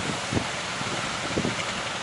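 Strong wind buffeting the microphone in irregular low thumps, over a steady rushing noise.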